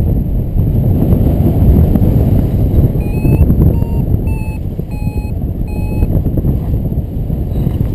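Wind buffeting the microphone in flight. About three seconds in, a paragliding variometer gives five short, evenly pitched beeps, roughly two a second, the tone it makes when the glider is climbing in lift.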